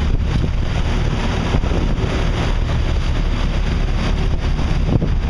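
Fishing boat's engine running steadily under way, with wind buffeting the microphone and the wake rushing past the hull.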